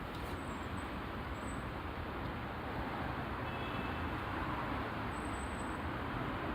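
Road traffic at an intersection: steady noise of cars going by, swelling slightly as a vehicle passes around the middle.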